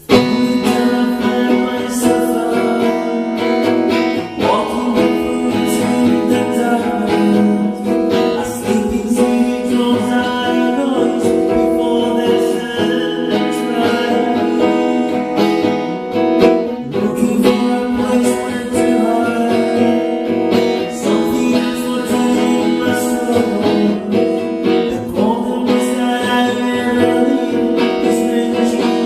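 Acoustic guitar strummed in a steady rhythm, with a voice singing over it: an acoustic rock song performance.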